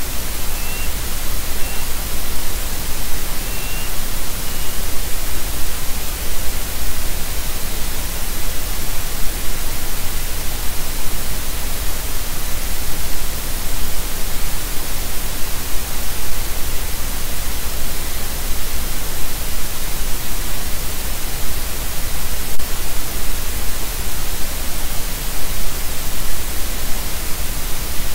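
Steady loud hiss of static from the nest camera's audio feed, even and unchanging, with a low rumble underneath. Four faint short high chirps come between about half a second and five seconds in.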